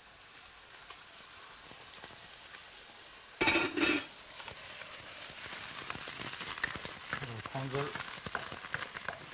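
Sea cucumber and mushrooms sizzling softly in a wok. About three and a half seconds in, stock ladled into the hot wok gives a brief loud burst. After that the sizzling is louder, with the clicks and scrapes of a metal spatula stirring against the wok.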